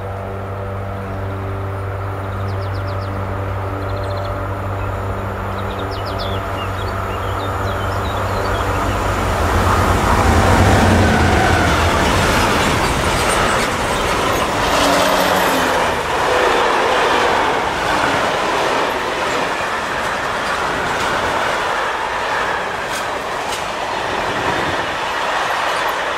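A freight train on an electrified main line passes close by. First a steady hum grows louder as the electric locomotive approaches, loudest about ten seconds in. Then a long string of covered freight wagons rolls past with rumbling and wheel clatter over the rail joints, and birds chirp faintly near the start.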